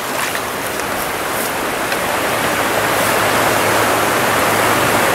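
Rushing water of a shallow trout stream running over a rocky riffle: a steady hiss that grows a little louder over the first few seconds.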